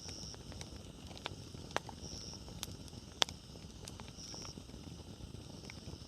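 Wood campfire burning with a low steady rumble and scattered crackles, a few sharp pops standing out, the loudest about three seconds in.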